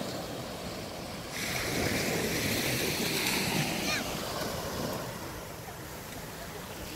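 Small waves breaking and washing up onto a sandy beach. The surf grows louder about a second and a half in, then eases off toward the end.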